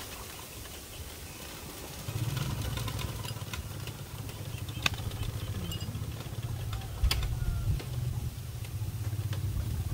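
A small engine running steadily, coming in about two seconds in, with a few sharp clicks over it.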